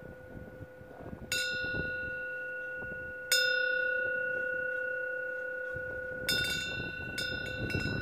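Korean temple wind bell (pungyeong) rung by its clapper as the wind swings its fish-shaped plate. It is struck about a second in and again at about three seconds, then twice more with lighter quick taps near the end, and each strike rings on in a long clear tone. Wind rumbles faintly underneath.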